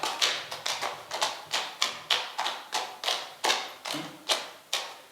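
Foley imitation of a horse walking: hard objects knocked together by hand in a steady clip-clop, about three knocks a second.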